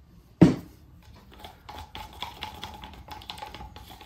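A single sharp knock about half a second in, then paint being stirred in a clear plastic cup with a wooden stick: rapid clicking and scraping of the stick against the cup's sides.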